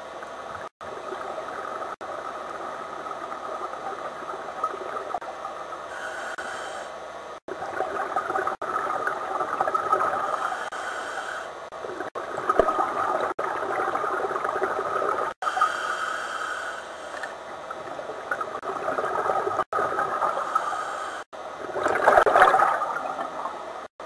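Scuba diver's breathing heard underwater: exhaled bubbles gurgling in swells every few seconds, with short hissing inhalations through the regulator. The sound breaks off for a split second several times.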